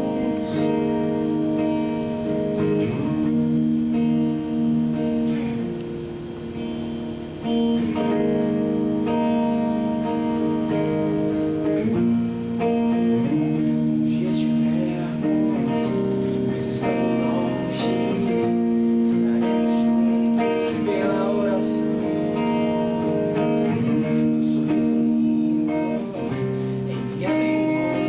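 A pop-rock band playing a song, with guitar to the fore, held chords changing every few seconds, and singing at times.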